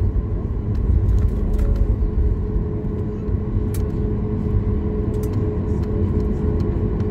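Inside the cabin of a Boeing 737 MAX 8 taxiing, its CFM LEAP-1B engines at idle: a steady low rumble with a constant engine hum, and a few faint ticks.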